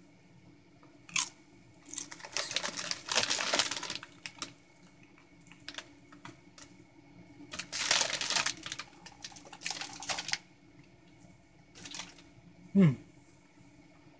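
Potato chips being crunched and the plastic chip bag crinkling, in several noisy bursts a few seconds long. Near the end there is a short falling vocal sound.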